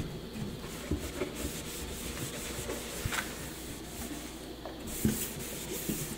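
Soft rubbing and handling noise with a few light knocks, as cloth and hands move about a stainless steel sink.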